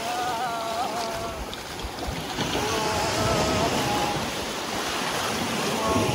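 Small waves washing onto a sandy shore, with wind buffeting the microphone. Drawn-out voice sounds come near the start and again about three seconds in.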